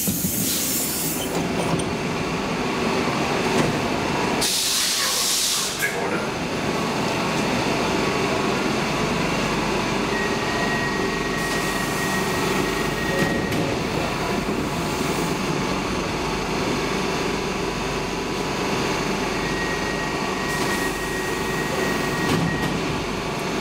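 Stockholm metro C14 train standing at an underground platform with its doors open, its equipment running with a steady noise. About five seconds in there is a short, loud hiss.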